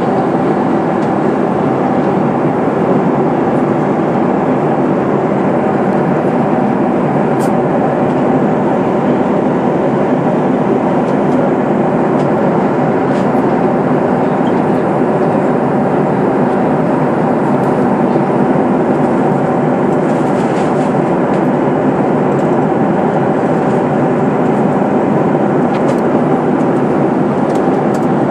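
Steady cabin noise inside a Boeing 737-800 airliner in flight: a constant rush of air blended with the drone of its CFM56 turbofan engines, unchanging throughout.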